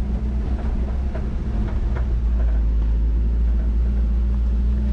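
A resort shuttle cart's engine running with a steady low drone as the cart drives along a paved path, with a few faint knocks.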